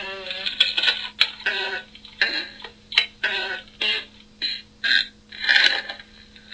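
A rapid series of about a dozen short fart sounds, some with a buzzy, wavering pitch, the longest and loudest near the end.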